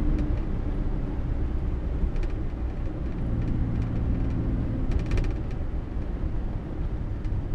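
1962 Morris Minor's four-cylinder A-series engine running under way, with road noise, heard from inside the cabin as a steady low rumble.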